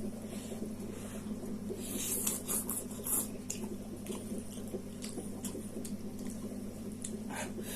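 Close-up eating sounds of spicy chow mein noodles: chewing and slurping with small wet mouth clicks and smacks, busiest a couple of seconds in and again near the end.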